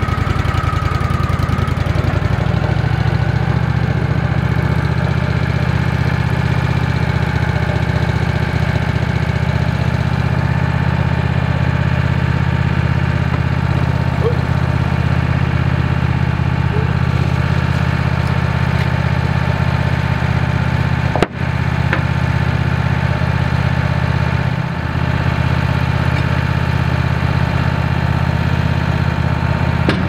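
Wood-Mizer LX150 bandsaw mill's engine running steadily at idle, with the blade not cutting.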